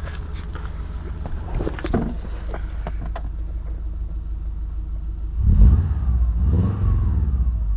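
Subaru EJ251 2.5-litre flat-four running at idle with irregular sharp taps over the first three seconds, then revved up and back down twice past the halfway point. The intermittent tap is not like a usual rod-bearing knock and does not get louder with throttle.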